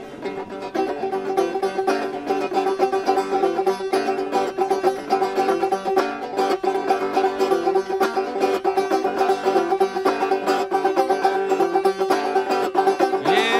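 Banjo playing a blues intro in rapid picked notes over a steady ringing drone. A sung voice comes in right at the end.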